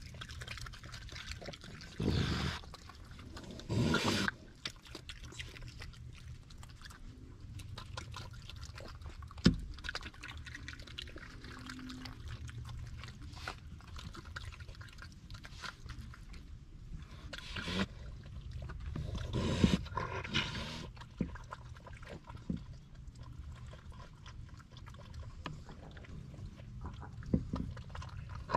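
Raccoons eating soft mashed food from a glass dish: wet chewing and lapping with many small clicks, and a few louder short bursts along the way.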